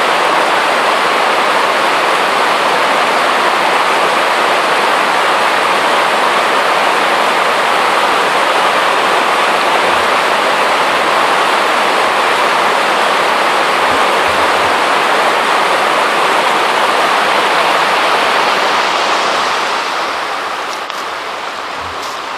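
Rushing water from a stream or small waterfall, a steady even rush that fades down over the last few seconds.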